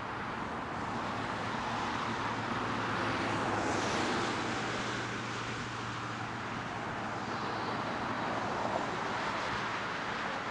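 Road traffic going by, one vehicle swelling past about four seconds in over a low steady hum.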